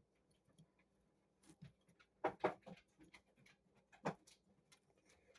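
Faint clicks and knocks of a Quintus Prime deluxe-class Transformers figure's plastic parts being handled and snapped together, with a pair of louder clicks about two and a half seconds in and another about four seconds in.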